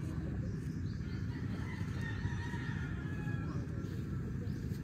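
Steady low rushing of wind and small waves on the beach, with faint rooster crowing in the distance.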